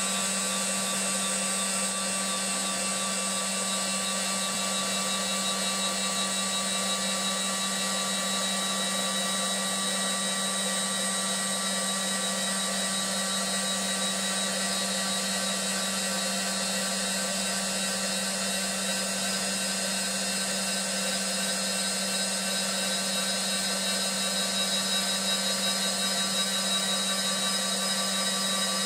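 CNC wood lathe running steadily: a constant low hum with several high steady whines over an even hiss, unchanging throughout.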